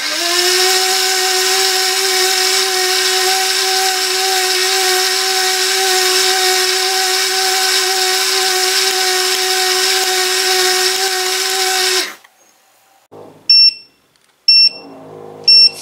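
Wonderchef automatic soup maker's blade motor spinning up and running steadily with a high whine as it purées the cooked pumpkin into a smooth soup, then cutting off suddenly about twelve seconds in. A few short beeps from its buzzer follow about a second apart, signalling the cycle is finished.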